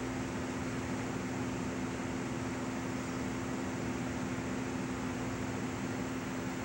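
Steady static hiss from a faulty VHS tape playing back, with a constant low tone underneath. The noise is a defect on the tape.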